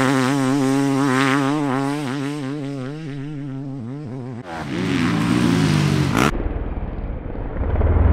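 Suzuki two-stroke motocross bike engine revving up and down as the rider works the throttle, the pitch wavering and fading as it pulls away. About four seconds in, another motocross engine takes over. Near the end, a duller, deeper motocross engine rumble swells.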